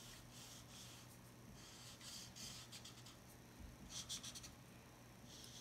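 Faint strokes of a grey felt-tip marker dragged across tracing paper while shading: a run of short rubbing strokes, busiest a little after halfway and again near the end.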